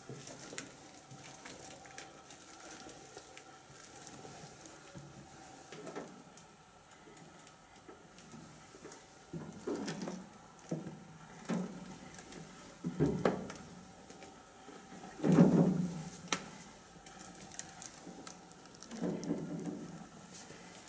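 Footsteps and shuffling across a concrete floor strewn with paper and debris, with scattered small clicks and a few louder scuffing thumps, the loudest about fifteen seconds in, in a small enclosed room.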